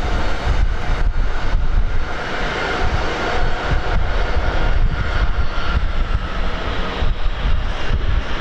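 Jet airliner's engines passing close by, a steady whine that falls slightly in pitch, over heavy wind buffeting the microphone.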